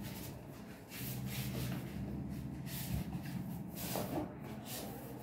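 Cardboard packaging rubbing and scraping as the inner box of a hair straightener is slid out of its cardboard sleeve, a series of short scrapes.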